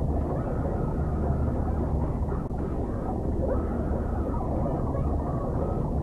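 Heavily muffled 'underwater' audio effect: a dense, steady low rumble in which the boy's shouting and keyboard banging are smothered, with only faint traces of his voice coming through.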